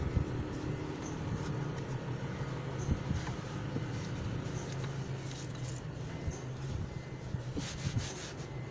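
Steady low mechanical hum, with faint rag rubbing and a few light knocks as a rag wipes down a truck's diesel fuel filter housing.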